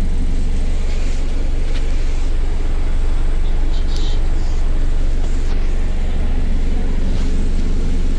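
Double-decker bus diesel engine idling, heard from the top deck as a steady, heavy low drone. It carries the rough exhaust note of a burst turbo exhaust.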